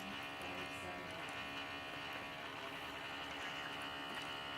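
Failing laptop hard drive in a PowerBook G4 running with a steady buzzing whine of several held tones. The owner takes it for a dying drive that does not sound happy.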